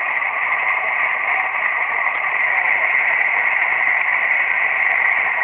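Steady static hiss from a Kenwood TS-480SAT transceiver's speaker, tuned to the 11-metre band with no station coming through between transmissions.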